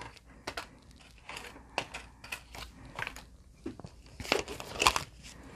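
Paper bills rustling and a clear plastic binder envelope crinkling as a stack of money is slid into the pocket and pressed flat. Scattered soft crackles, with a few louder crinkles near the end.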